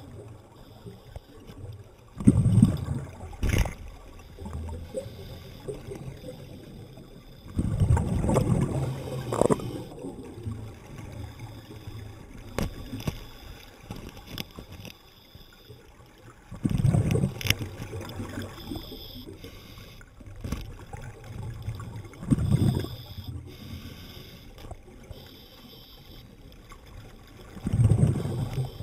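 Underwater: a diver's exhaled air bubbling out in loud gurgling bursts about every five or six seconds, with a low, quieter water hiss between breaths.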